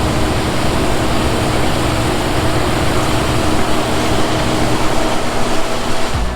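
Engine of heavy farm harvesting machinery running steadily: a loud, even rushing noise with a few steady hum tones underneath.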